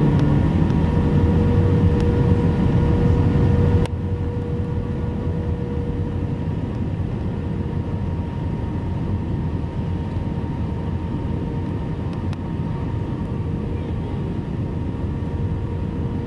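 Airbus A320-233 cabin noise on approach: a steady drone of airflow and the IAE V2500 engines, with a low hum under it. The level drops a little with a click about four seconds in.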